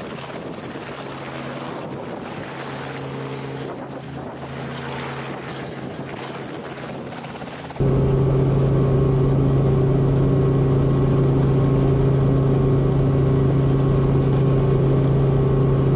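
Light helicopter hovering, heard from outside as a steady whooshing rotor and engine drone. About eight seconds in, the sound switches abruptly to inside the cabin, where a louder, steady low hum of the engine and rotor drive takes over.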